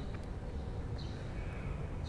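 Quiet pause between sung phrases of Quran recitation: faint background hiss with two brief, faint high chirps about a second apart.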